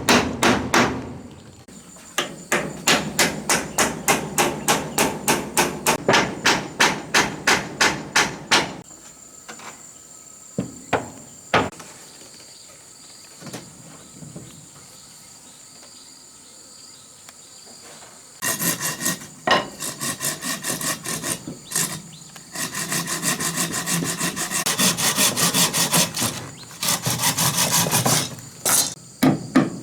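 Hammer driving into wood with fast, even blows, about three to four a second. This is followed by a pause broken by a few single knocks, with insects chirping. About halfway through, a run of rougher, rapid strokes on wood starts and carries on to the end.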